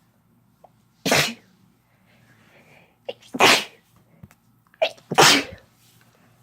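Three loud human sneezes about two seconds apart.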